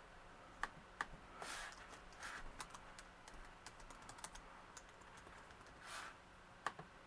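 Typing on a computer keyboard: scattered, irregular key taps with short pauses between them.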